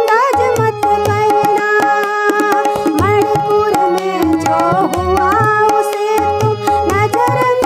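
Tabla playing a steady rhythm, with deep bass strokes on the bayan, under held harmonium chords, while a woman sings the melody in an Indian folk song.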